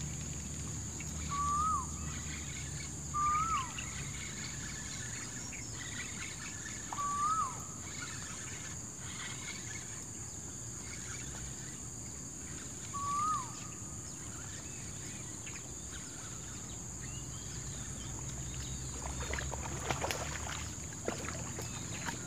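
A bird calling over and over, each call a short note that ends in a quick downward flick, four times at gaps of a few seconds, over a steady high-pitched drone. A few clicks and knocks come near the end.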